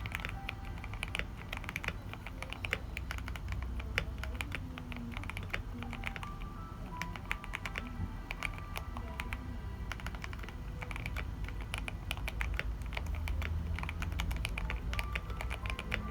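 Continuous fast typing on a GK68 custom mechanical keyboard, keys clacking in quick irregular runs, over background music.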